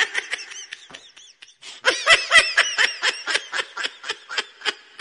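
Snickering laughter sound effect: a rapid run of short, high-pitched laughs, about four a second, with a brief lull about a second and a half in, cutting off suddenly at the end.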